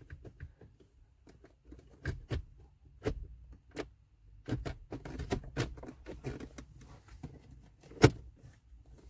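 Plastic trim clicking and knocking as the instrument cluster surround is pressed down onto the dashboard and its clips snap into place, in a string of irregular clicks with one sharp knock, the loudest, about eight seconds in.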